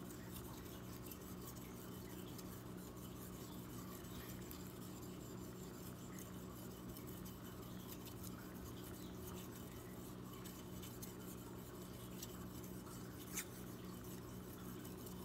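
Steel knife blade being stroked back and forth over a wet Wakasa awasedo Japanese natural finishing stone: a faint, irregular scraping with small ticks over a steady low hum. Near the end comes one sharp click.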